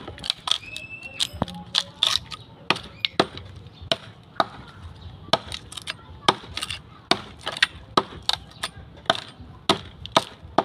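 A hoe's steel blade chopping into a log, sharp wooden chops at about two strokes a second.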